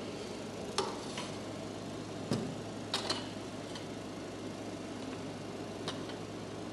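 Hand tools and small metal parts being handled, giving about six sharp clicks and clinks at irregular moments, two close together about three seconds in. A steady low hum lies beneath.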